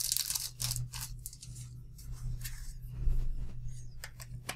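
Plastic wrapping crinkling and rustling as a smartphone battery is unwrapped and handled, then a sharp click near the end as the battery is pressed into the phone's battery bay.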